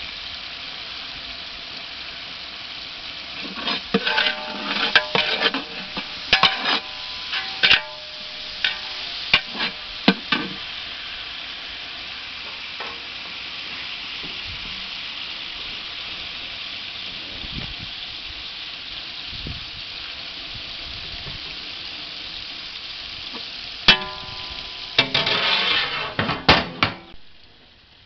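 A large aluminium cooking pot of onions, tomatoes and chillies in oil and water sizzling with a steady hiss, while a metal ladle stirs and knocks against the pot in clusters of ringing clanks. Near the end comes a last run of metal clatter as the lid goes on, and the hiss fades.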